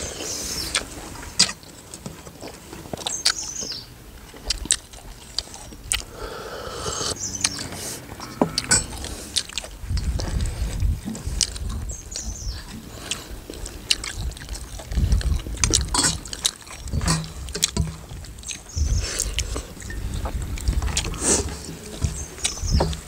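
Close-up eating sounds of people eating rice meals with their hands: chewing and mouth sounds, with many short clicks of hands, bangles and utensils against steel plates and bowls. Several spells of low rumbling from wind on the microphone.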